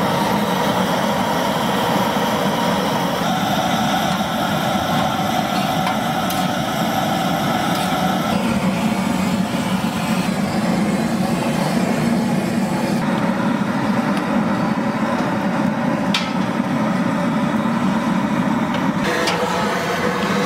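A gas torch blowing flame into firewood under large cast-iron pans, making a steady rushing noise. The tone of the rush shifts a few times, and there is a single sharp click near the end.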